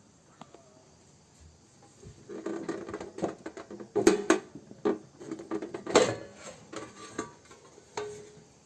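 Knocks and clattering rattles of a V-Guard UPS cabinet being opened by hand, its cover and casing handled. The clatter starts about two seconds in, with the loudest knocks about four and six seconds in.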